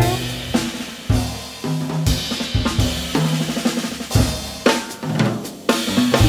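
Jazz drum kit playing alone in a short break: separate snare, bass-drum and cymbal hits at an uneven rhythm with gaps between the strokes.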